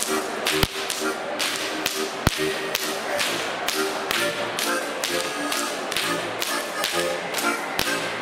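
Goaßl whips cracked by several folk dancers in a whip-cracking routine (Goaßlschnalzen), sharp cracks falling at a steady rhythm, several a second, in time with live band music.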